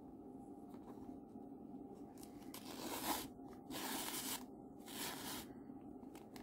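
Three short scraping rustles as a ribbon is worked through the side hole of a foam craft mask and the mask is handled.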